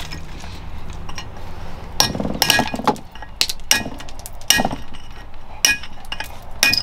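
Hammer striking a steel chisel into black Marquina marble, a dozen or so irregular sharp strikes about two a second, each with a short metallic clink. Hand-carving the stone.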